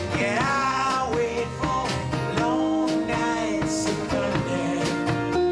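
Rock song with guitars and a steady drum beat, a lead melody sliding between notes over held chords.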